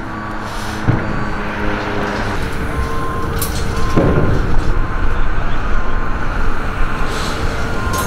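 Heavy diesel vehicle engine running, growing louder through the first few seconds and then holding steady, amid street and construction-site noise.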